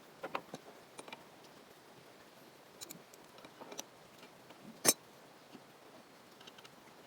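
A few light clicks and taps at uneven intervals, with one sharp, louder knock about five seconds in, like tools or pieces of wood being handled during woodworking.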